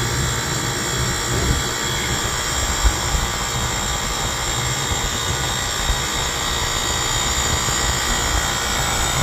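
Rooftop HVAC unit running: a steady mechanical whir and hum of its fans and compressor, with a light knock about three seconds in.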